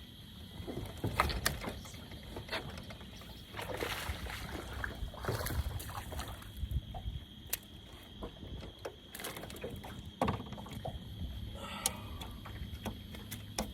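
Water splashing with irregular knocks and clicks against a fishing boat, over a steady high drone of night insects.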